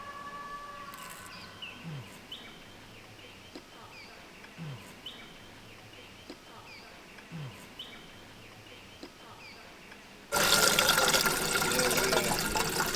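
Water running or pouring, starting suddenly and loud about ten seconds in. Before it, only faint short chirps repeating every second or two.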